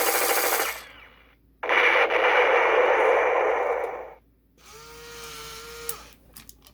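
G.I. Joe Accelerator Suit Duke toy's sound chip playing submachine-gun firing effects through its small speaker. A short burst is followed by a longer burst of about two and a half seconds. About five seconds in, a steady electronic tone sounds for roughly a second.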